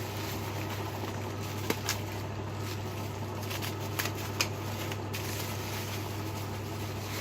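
Hands rustling a plastic bag and fabric vacuum-cleaner dust bag while wrapping a rubber band around them, with a few light clicks, over a steady low hum.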